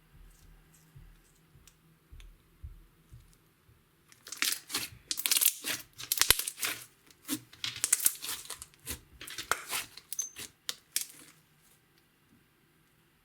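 Slime being squeezed, stretched and folded by hand, giving a quick run of crackling, popping snaps as air pockets burst; it starts about four seconds in and dies away near the end.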